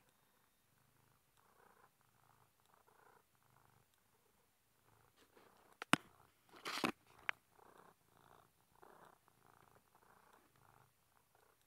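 Orange tabby cat purring softly and steadily in an even in-and-out rhythm. About six seconds in, a sharp click and a short rustling burst, then another click, stand out over the purr.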